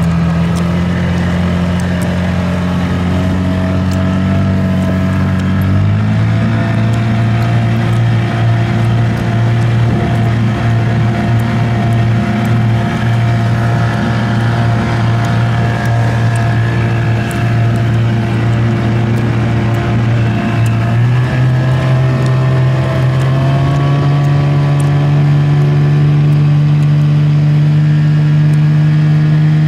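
Small motorboat's engine running steadily under way, over a constant rush of wind and water noise. It steps up in pitch about six seconds in, and again around twenty-one seconds, as the throttle is opened.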